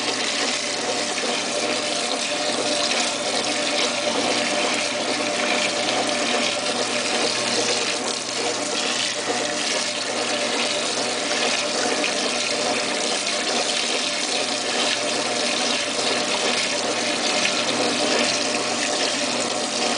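Washing machine in its first wash turn: a steady rush of water in the tub, with a faint steady hum underneath.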